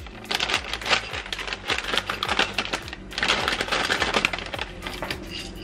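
Granola clusters poured from a plastic bag, rattling and clicking into a small plastic blender cup, with the bag rustling in stretches.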